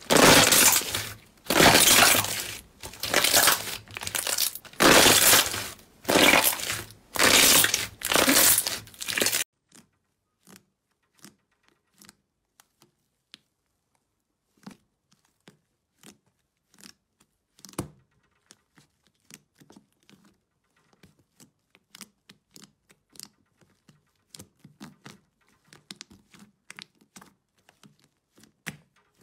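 Hands squeezing clear green slime full of air bubbles: about seven loud, noisy squishes, each about a second long. About nine seconds in this stops, and there are only faint, scattered clicks and pops as hands knead a thick pale-blue slime.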